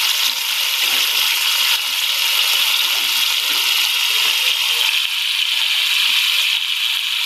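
Onions, tomato and spices frying in ghee in a pot: a steady, even sizzle.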